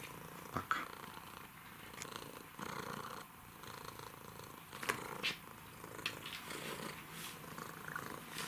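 Domestic cat purring while being stroked, with a few brief rustling sounds about half a second in and again about five seconds in.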